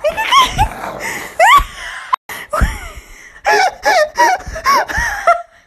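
Hearty laughter in repeated bursts of short rising and falling laughs, thickest near the end.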